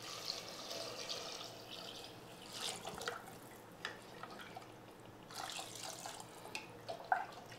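Water poured from a vessel into a stainless-steel pressure cooker over browned mutton trotters and masala, splashing and trickling faintly as the cooker fills.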